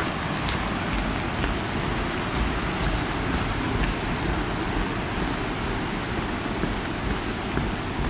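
Steady rushing of a mountain stream in the gorge below, heaviest in the low end, with faint regular footsteps of a walker on the path.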